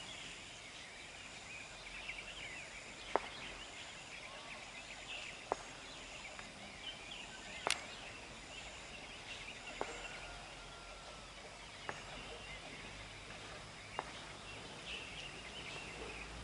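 Faint outdoor ambience: insects trilling and scattered bird calls, with a sharp click about every two seconds.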